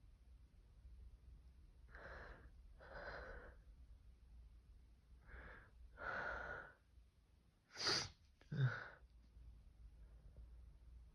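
A person's sneeze build-up: four gasping breaths in, then a sharp sneeze about eight seconds in, followed at once by a second, deeper burst.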